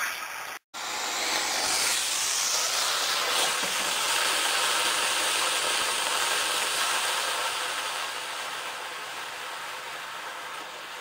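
Small homemade rocket motor burning with a steady hiss that builds over the first couple of seconds, then slowly fades. Just before it, the sound cuts out briefly for about half a second.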